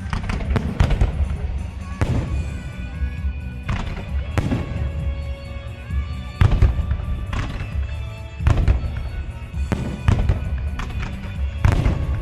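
Fireworks display: a string of firework bangs, about a dozen, spaced irregularly from a fraction of a second to a couple of seconds apart, with music playing underneath.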